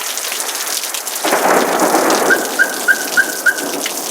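Heavy rain pouring, with a rumble of thunder rolling in about a second in. Partway through, five quick high chirps repeat about three times a second.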